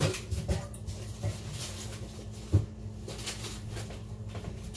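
A few short knocks and rustles as a cardboard box of frozen garlic Texas toast is handled and pulled from a freezer. The sharpest knock comes about two and a half seconds in, over a steady low hum.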